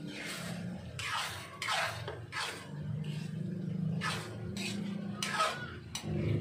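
Utensil scraping a frying pan in repeated strokes while stirring a simmering beef and vegetable filling, over a steady low hum.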